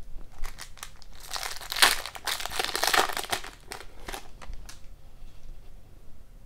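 Foil wrapper of an Upper Deck hockey card pack crinkling and tearing as it is ripped open by hand. The crinkling is loudest from about a second in to about three and a half seconds, then dies away.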